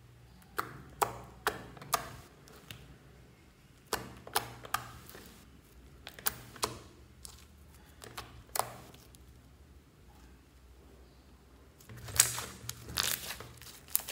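Thick slime being kneaded and squeezed by hand, giving sharp sticky clicks and pops as trapped air bursts. The pops come singly every second or so, then in a dense crackling run near the end.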